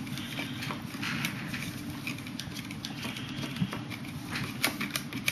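Metal fork stirring oil in a small plastic cup, with irregular light clicks and taps as the tines strike the cup's sides and bottom, a few sharper taps near the end.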